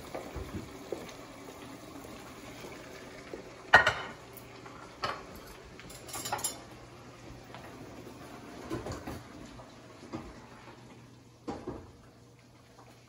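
Dishes, pans and cutlery being handled: scattered clinks and knocks of crockery and metal, the loudest about four seconds in.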